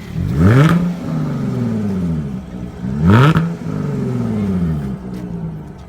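Car engine blipped twice, about two and a half seconds apart: each time the revs shoot up sharply, then fall back slowly to a steady idle.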